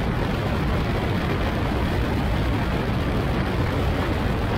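Steady wind rush on the microphone in an open-cockpit kit car at track speed, over the car's Yamaha R1 inline-four motorbike engine running.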